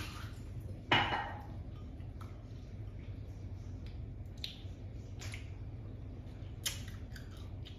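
Kitchen handling sounds at a small glass bowl of lime pieces: a knock with a short ring about a second in, then a few light clicks as pieces are picked out by hand. A low steady hum runs underneath.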